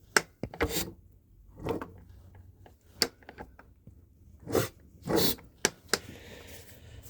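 Irregular knocks, clicks and scrapes of hand tools and metal engine parts being worked on during the teardown of a Suzuki DS100 two-stroke engine, about eight separate sounds.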